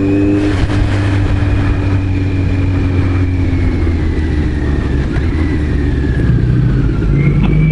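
Kawasaki Z900RS inline-four engine running through its K-Factory titanium full exhaust while the bike is ridden, with steady low road and wind rumble. A faint high whine slowly falls in pitch throughout.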